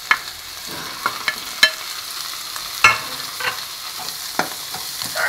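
Chopped tomatoes sizzling in hot oil in a non-stick kadai, with a spatula tapping and scraping against the pan as they are stirred in: a steady sizzle under a dozen or so sharp taps.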